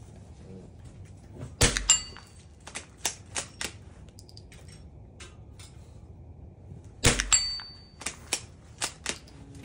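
Two loud shots from a light scoped rifle, about five and a half seconds apart. Fainter sharp cracks come in between.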